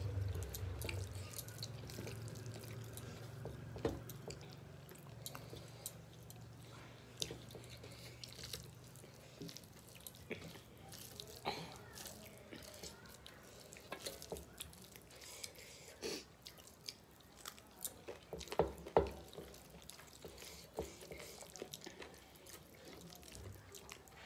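Eating rice and curry by hand from metal plates: soft wet squishes as fingers mix and scoop the food, scattered light clicks and taps against the plates, and chewing, with a brief cluster of louder clicks a little over two thirds of the way in.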